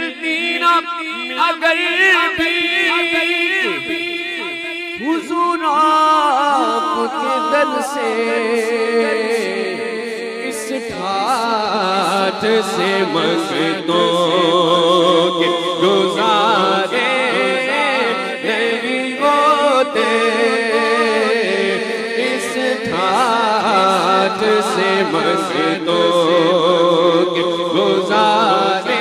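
A man singing an Urdu naat unaccompanied, in a wavering, ornamented melody. Other male voices join in behind him from about eleven seconds in.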